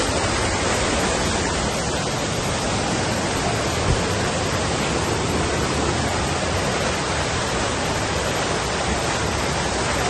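Steady, loud rush of fast-flowing water, a stream or waterfall running high in monsoon spate, with enough water to make the crossing risky. A brief knock about four seconds in.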